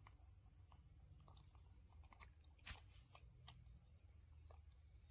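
Near silence: faint scattered clicks and smacks of baby macaques chewing fruit, one sharper click about two and a half seconds in, over a steady high-pitched whine and a low hum.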